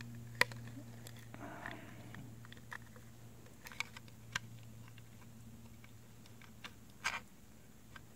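Small plastic and metal parts of a Daisy 340 BB pistol clicking and ticking as they are handled and pressed into place by hand: a sharp click about half a second in, then a few softer scattered clicks and a brief rustle.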